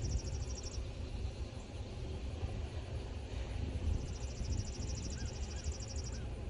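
An insect trilling in rapid high pulses, once for the first second and again from about four seconds in for two seconds, over a low, uneven rumble that is the loudest sound.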